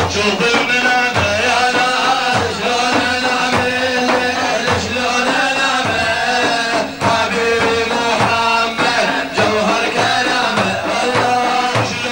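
Middle Eastern Sufi devotional song: a wavering melody over a steady drum beat.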